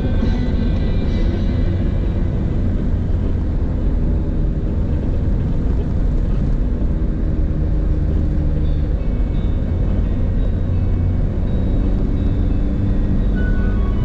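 Car driving along a road, heard from inside the cabin: a steady, even rumble of engine and road noise.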